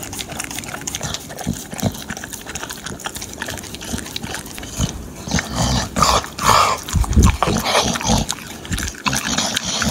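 A dog licking and chewing a frozen yogurt popsicle: wet lapping, slurping and crunching, busiest and loudest from about five to eight seconds in.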